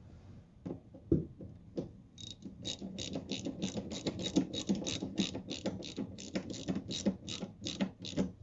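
A few single knocks, then from about two seconds in a socket ratchet clicking in steady, even strokes, roughly four to five clicks a second, as a wiper arm nut is run down.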